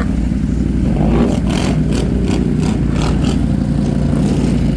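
ATV engine running steadily. A quick run of about eight sharp clattering knocks comes over it from just after a second in to past the three-second mark.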